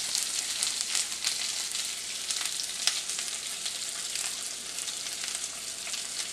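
Sliced onions sizzling in hot oil in a frying pan: a steady hiss with scattered small crackles, a little louder at the start.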